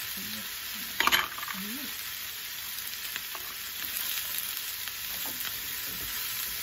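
Oil sizzling steadily in a nonstick frying pan as tofu, ground pork and fresh celery are stir-fried, with a spatula scraping and tapping in the pan. There is one loud clatter against the pan about a second in.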